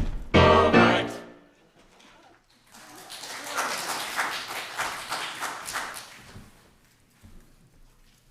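A piece of music ends on a held chord about a second in. After a short pause, the congregation applauds for about four seconds, and the applause fades out.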